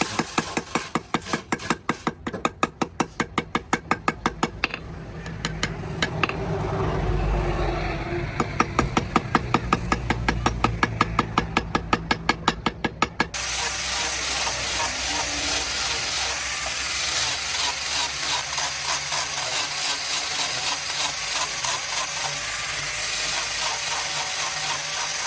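Rapid, evenly spaced hammer blows on steel, several a second, in two runs with a short pause between them. About thirteen seconds in the sound changes suddenly to a steady noisy whir with a fast pulse.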